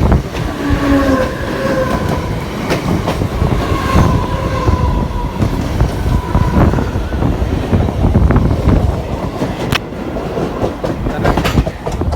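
Passenger train running on the rails: loud rumble with rail clatter and clicks, and a thin drawn-out squeal that sinks slightly in pitch through the first half.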